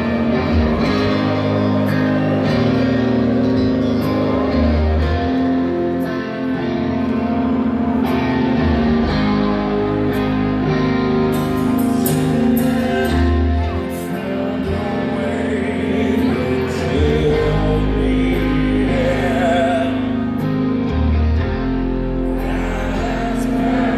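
Rock band playing live: electric guitar and bass guitar over drums, with singing, loud and heard from the crowd through the amplified sound of a large hall.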